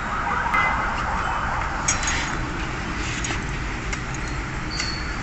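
Light metallic clinks and knocks from hand tools and metal parts being handled during front shock absorber work, over a steady low rumble. There is a rustling hiss in the first couple of seconds and a few sharp clicks later on.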